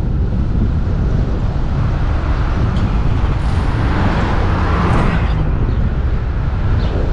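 Wind rumbling steadily on the microphone of an action camera mounted on the hood of a moving Jeep, mixed with road noise. A swell of hissing noise comes and goes about four seconds in.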